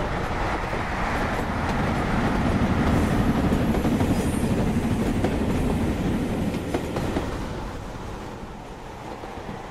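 Model railway coaches running past at close range, their wheels rumbling on the track, loudest as the train goes by, with a few sharp clicks over the rail joints, then fading as the train pulls away.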